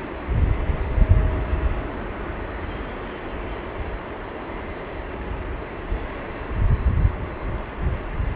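Jet engines of a twin-engine jet airliner moving away along the runway, a steady engine noise, with low irregular rumbling surges about a second in and again near the end.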